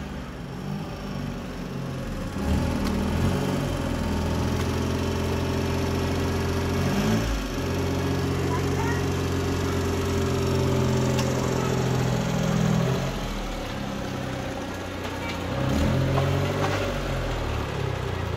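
Engine of a homemade front loader running under load while the bucket scoops and lifts sand. Its speed rises and falls several times, dipping briefly about a third of the way in, easing off past two-thirds, and picking up again near the end.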